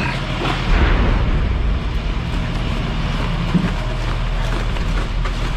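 Heavy armoured vehicle's engine running steadily close by, with a louder low rumble for about half a second near the start.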